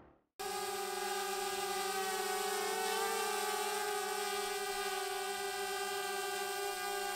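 Small folding quadcopter drone flying, its propellers giving a steady buzz with several held tones. The pitch wavers slightly about three seconds in.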